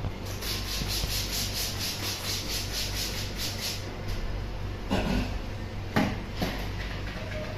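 Window glass being cleaned by hand before vinyl goes on: a quick series of rhythmic hissing strokes, about four a second, that stops after about three and a half seconds, followed by a couple of knocks.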